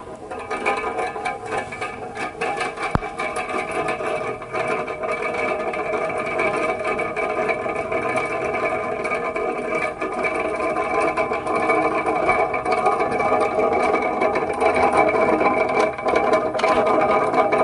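Comfort Zone 9-inch cradle fan running, a steady motor hum and blade drone that grows gradually louder, with a single brief click about three seconds in.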